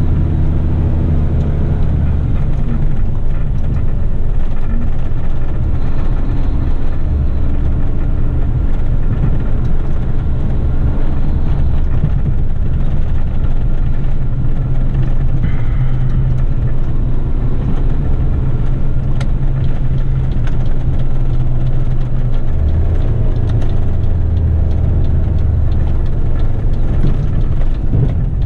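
Garbage truck's diesel engine running while driving, heard inside the cab, with road noise from the tyres; the engine note shifts about two seconds in and again near the end.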